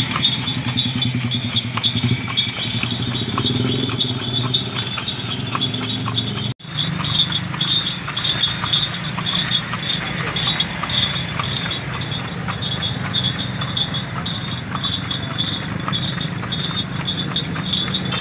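A cart horse's hooves clip-clopping steadily on the asphalt road as it pulls a two-wheeled bendi cart, with a bright metallic jingle of the harness keeping time and the low hum of motorbike traffic underneath. The sound drops out for an instant about six and a half seconds in.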